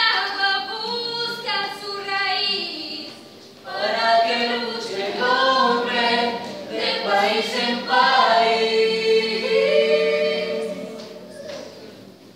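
Mixed youth choir of girls and boys singing in harmony. A short break comes about three and a half seconds in, then a long held chord near the end fades away.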